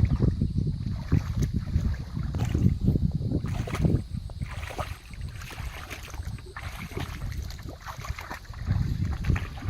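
Water sloshing and lapping, with wind rumbling on the microphone. It comes in irregular surges, heavier in the first few seconds and again near the end.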